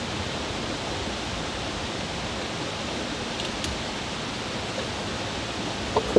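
Steady rush of water flowing through a culvert, an even wash of noise with no rhythm. A short knock sounds near the end.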